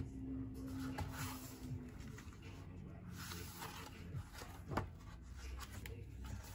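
Paper pages of a hardback book being handled and turned, with soft rustling and a sharp papery tap a little before five seconds in as a page flips over.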